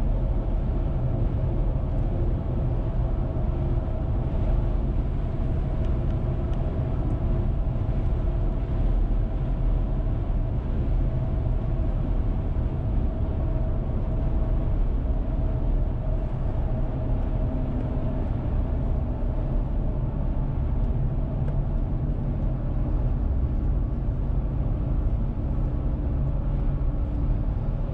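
Car driving at road speed, heard from inside the cabin: a steady rumble of tyre and engine noise with a faint constant hum.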